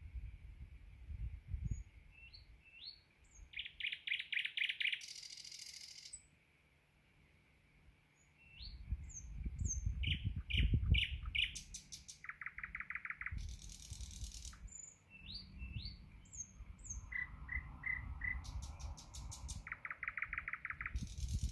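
Thrush nightingale singing: phrases of short rising whistled notes, fast pulsed trills and dry clicking rattles, separated by brief pauses. A low rumble underneath swells about halfway through.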